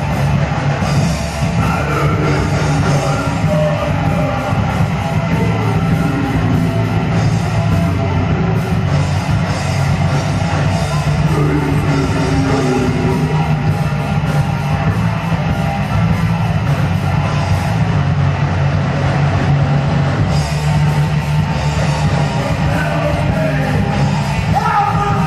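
Loud heavy metal music with a drum kit, running continuously.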